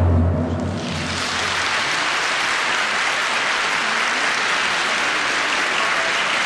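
Audience applauding steadily, as the last low orchestral chord of the skating music dies away in the first second.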